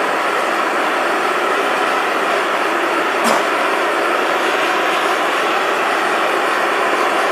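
Homemade propane burner running in a small coffee-can forge: a steady, loud rush of gas and flame, with one brief click about three seconds in.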